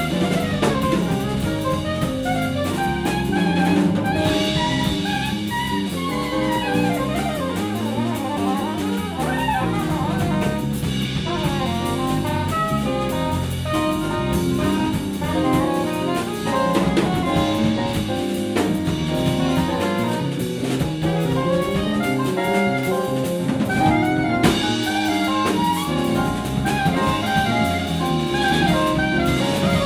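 Recorded jazz band music: a melody line moving over a drum kit keeping a steady beat.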